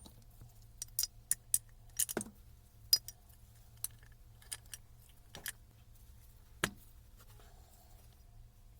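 Small metal parts and tools clinking and tapping in an irregular run of sharp clicks, two of them, about two seconds in and again past the middle, with a duller knock.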